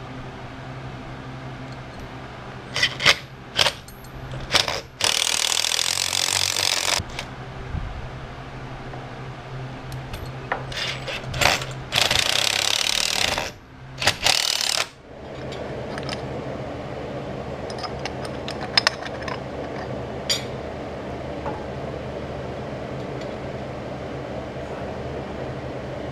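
Power driver with a 5/16-inch socket driving Tapcon screws into a concrete header: a few clicks, then bursts of driving, the first about two seconds long and the later ones shorter, over a steady low hum. After the last burst only the hum and a few light ticks remain.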